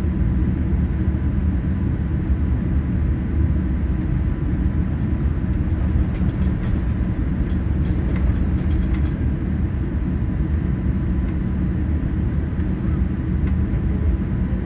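Steady low rumble inside the cabin of a Boeing 787-9 taxiing after landing: engines at low power and the airframe rolling over the taxiway. Faint light rattles come in a few times about halfway through.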